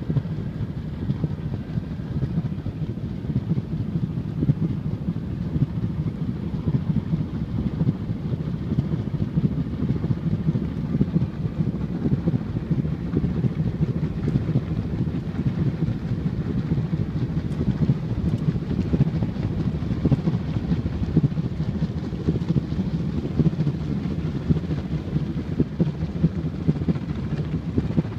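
Steady low rumble of a vehicle moving along, with wind buffeting the microphone.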